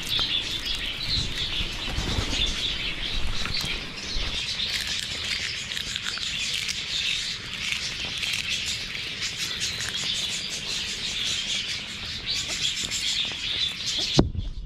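A flock of budgerigars chattering and chirping continuously, with wings flapping as the hungry birds crowd in to feed. The sound cuts off abruptly near the end.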